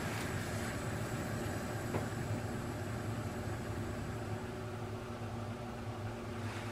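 Small gas camping stove's burner hissing steadily as it is left to burn out, its flame dying down. The hiss eases slightly near the end.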